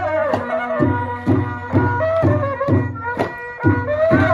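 Cambodian traditional ensemble playing live. A wind instrument carries a wavering, sustained melody over drum beats about twice a second.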